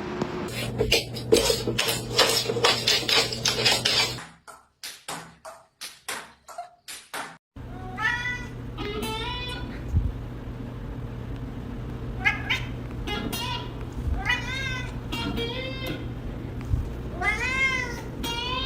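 Domestic cat meowing repeatedly, a string of drawn-out calls that rise and fall in pitch through the second half. Before it comes a loud, dense rattle of rapid sounds for about four seconds, then a few seconds of short choppy bursts.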